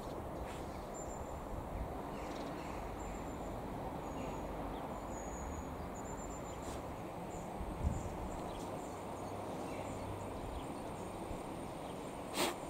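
Low steady rumble of a Class 150 Sprinter diesel multiple unit drawing slowly towards the platform, with faint bird chirps above it. A low thud comes about eight seconds in and a sharp click just before the end.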